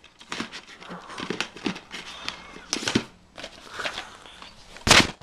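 Plastic DVD cases clicking and rattling as they are worked back into a box set by hand, with rustling and scraping handling noise and one loud knock near the end.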